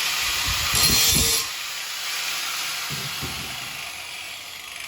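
Power grinder sharpening a metal knife edge, a steady grinding hiss that is loudest about a second in and eases a little after.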